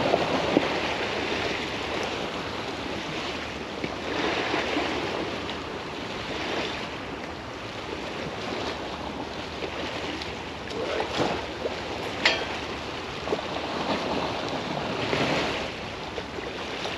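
Estuary waves washing against the bank at a very high tide, the wash swelling and easing every few seconds, with wind on the microphone. A single sharp click about twelve seconds in.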